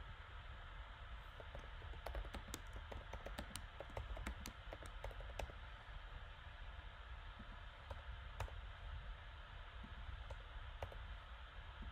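Typing on a computer keyboard: a quick run of keystrokes for a few seconds, then a few scattered key presses, over a faint steady hum and hiss.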